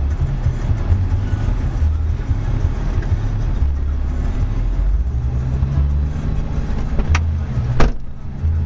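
Off-road 4x4 driving through shallow flood water, its engine a steady low rumble heard from the vehicle. Two sharp knocks near the end.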